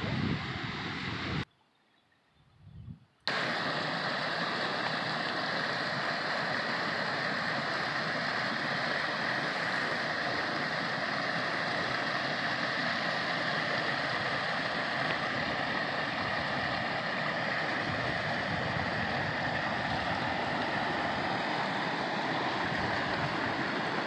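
Mountain creek running over a small rocky cascade: a steady rush of water. It cuts out briefly a second and a half in, then comes back unchanged.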